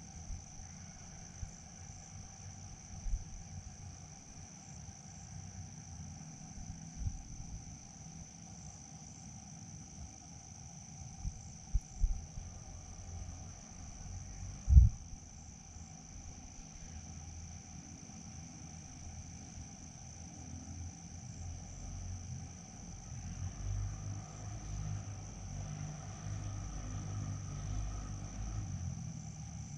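Steady, high-pitched insect chorus, of the cricket kind, trilling without a break. Several short low thumps cut across it, the loudest about halfway through, and a low rumble swells in the last few seconds.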